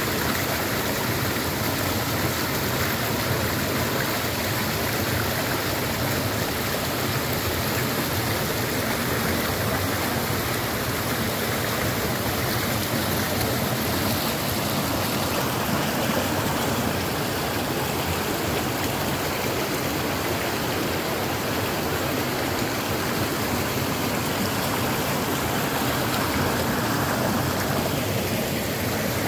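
Mountain stream rushing over and between boulders: a steady, even rush of water.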